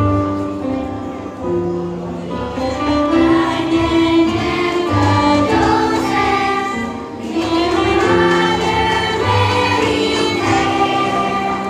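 Children's choir singing a song together over instrumental backing music.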